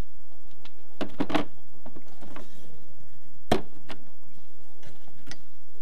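A few separate knocks and clicks of hands handling the rudder fittings on a plastic kayak hull: two close together about a second in, and the sharpest one about three and a half seconds in.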